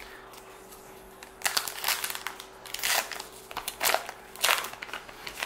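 A baseball card pack wrapper being torn open and crinkled by hand: a run of sharp crinkling rips, about five, starting about a second and a half in.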